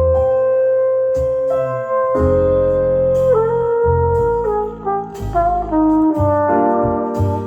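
Brass-led music with bass notes playing back through a pair of restored vintage Pioneer CS-410 loudspeakers, with held horn notes changing every second or so.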